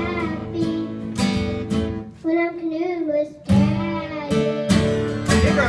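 A young girl singing a folk song, backed by a strummed acoustic guitar and a fiddle.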